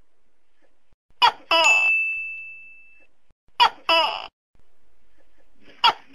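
Tokay gecko calling "to-kek" three times, about two and a half seconds apart. Each call is a short sharp note followed by a longer note that fades. The last call starts just before the end.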